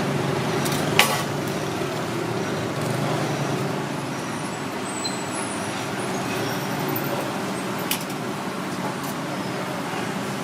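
Steady street traffic noise with a low engine rumble, broken by a sharp clack about a second in and a lighter one near the end.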